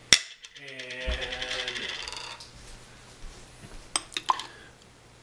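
A mustard jar's lid drops onto the counter with a sharp clack and wobbles to rest like a spun coin, its rattle quickening as it settles. Two light clinks follow about four seconds in.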